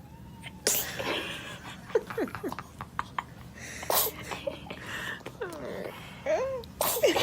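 A baby sneezing three times, sharp short bursts about a second in, around four seconds in and near the end, with laughter and short vocal sounds between the sneezes.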